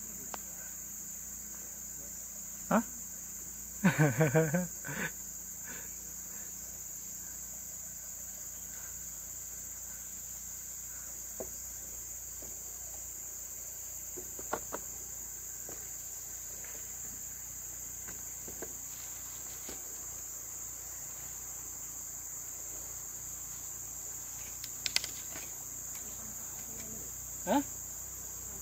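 Steady, high-pitched drone of rainforest insects. A few short pitched calls stand out over it, the loudest about four seconds in.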